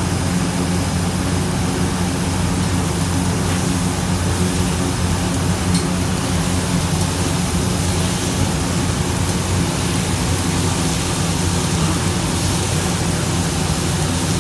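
Fish frying on a flat street-food griddle: a steady hiss with a low, even hum beneath it, and a few faint clicks of a spatula.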